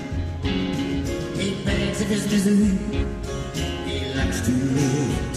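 Live band music: electric keyboard and electric guitar over a steady beat, with a voice singing in two short phrases.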